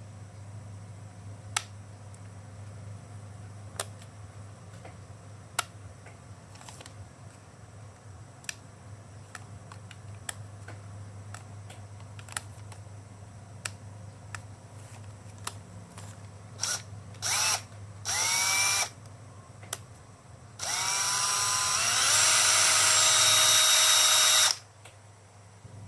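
Makita portable hand drill's motor triggered in three short blips, each whining up in pitch, then run for about four seconds at steady speed before stopping. Before that come scattered sharp clicks over a steady low hum.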